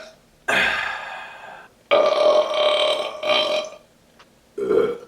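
A man burping on command, several loud deliberate burps in a row, each starting suddenly, with a long drawn-out one about two seconds in and a short one near the end.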